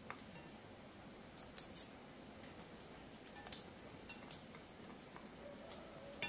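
Scattered light clinks and taps of kitchenware being handled, about ten short sharp clicks spread over a few seconds, the loudest about three and a half seconds in.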